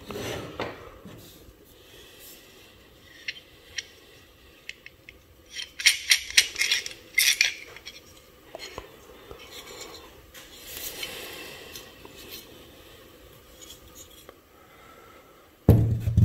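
Small metal parts of an old block plane clicking and clinking against each other and the wooden bench as the plane is taken apart and handled, with a busy run of clinks about six seconds in and some scraping around eleven seconds. Near the end a heavy thud as a metal bench vise is set down on the bench, the loudest sound.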